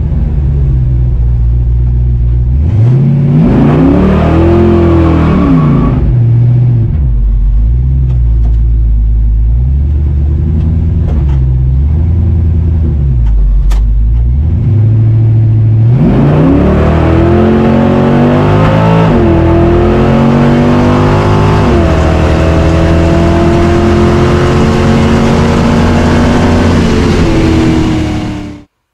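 Cammed Chevy 350 Vortec small-block V8 driven on fuel topped up with 93 octane, a test of whether its spark knock (detonation) has gone. It revs up and back down a few seconds in and runs low and steady for a while. From about halfway it accelerates hard, rising in pitch with two short dips as it changes gear, then eases off and cuts off abruptly near the end.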